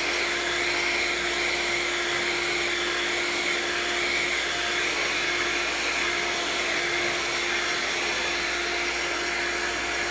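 Vacuum cleaner running at a constant speed, a steady hum under a broad airy hiss.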